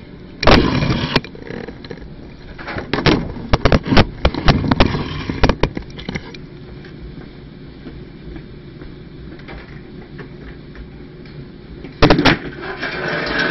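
Groups of knocks and clattering as objects are handled and set down: about half a second in, again from about three to six seconds in, and once more near the end, with quieter stretches between.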